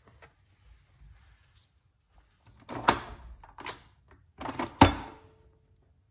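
Capsule coffee machine being loaded: its plastic lever is lifted and pressed shut on a capsule, giving a few sharp clicks and clunks from about halfway through, the loudest one near the end.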